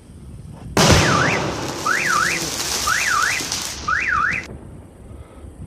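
A large aerial firework shell bursts with a sudden loud boom about a second in, followed by a dense hissing, crackling wash. Over the wash a wailing tone sweeps up and down four times, about once a second, and everything cuts off suddenly about four and a half seconds in.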